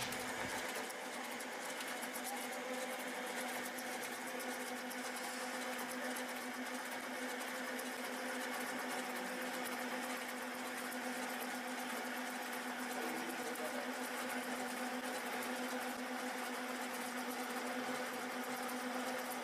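Centre lathe running steadily with its spindle turning during knurling, the knurl wheels pressed into the spinning workpiece; an even mechanical hum that holds one pitch throughout.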